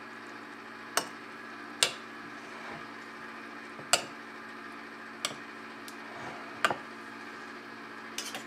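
A metal serving spoon tapping and clinking against ceramic baking dishes while thick dip is smoothed out: about six sharp, separate clicks a second or so apart, over a steady low hum.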